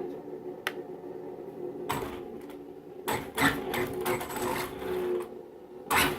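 Traxxas onboard audio module in a Traxxas Slash VXL playing a simulated engine idle through its small speaker: a steady hum, with several short noisy bursts over it, the longest stretch in the middle and a sharp one near the end.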